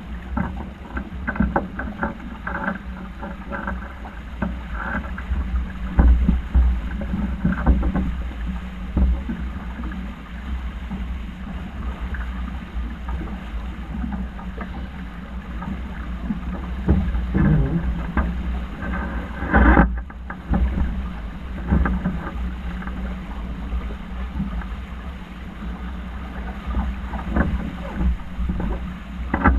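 Sailing yacht under way: wind buffeting the microphone in a low, uneven rumble, with water rushing along the hull and occasional knocks and rattles of gear.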